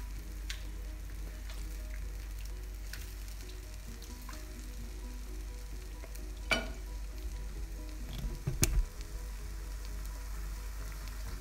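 Chicken and carrots simmering in water and sauce in a granite-coated wok, a steady sizzling bubble, with a couple of sharp knocks about six and a half and eight and a half seconds in.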